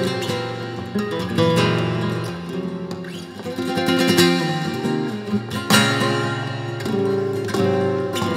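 Flamenco guitar played solo: runs of plucked notes broken every second or two by sharp strummed chords.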